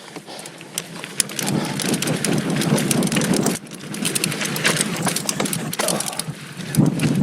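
2019 Giant Stance 2 mountain bike rolling down a loose dirt trail: tyres crunching and clattering over dirt and stones, with the bike rattling and many sharp clicks, briefly dropping off about three and a half seconds in.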